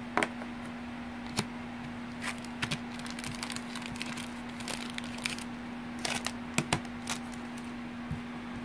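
Baseball trading cards being handled and flipped through by hand: irregular light clicks and snaps of card stock, over a steady low hum.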